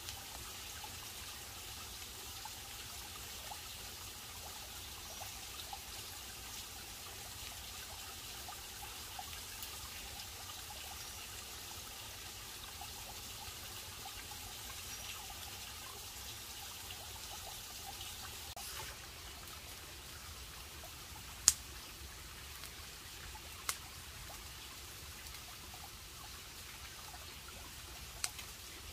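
Water trickling steadily, with a few sharp cracks from the wood fire, the loudest about two-thirds of the way through.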